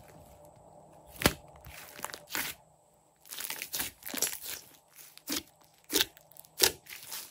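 Glossy slime being squeezed and pressed by hand, with sharp pops and crackles as trapped air bursts. One loud pop comes about a second in, a quick run of crackles follows near the middle, and a few single pops come near the end.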